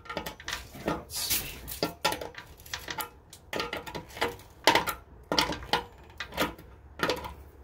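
Irregular metallic clicks and clanks, about a dozen, as pliers work the screw holding a new stainless burner tube in a Weber Q 320 gas grill's cookbox, tightening it.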